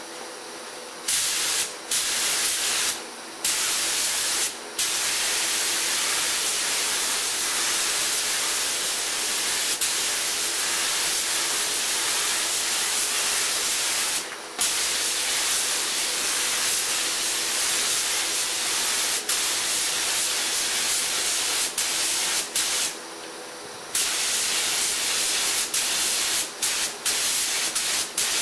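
Compressed-air paint spray gun hissing steadily as it lays a medium wet coat of base color onto a car door. The trigger is released briefly several times, most clearly about a second in and for about a second near the end.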